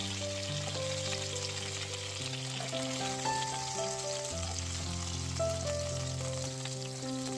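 Boneless chicken thighs sizzling steadily in hot fat in a stovetop grill pan, with background music playing over them.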